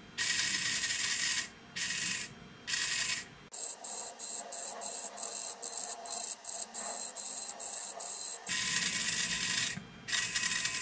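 The small AC servo motor and gear train of a Sperry aircraft gyro amplifier base run in short whirring, rasping bursts as the servo loop drives its synchro transmitters to follow a hand-turned synchro transmitter. There are two bursts in the first three seconds, a quieter stretch of light clicking in the middle, and a longer burst near the end.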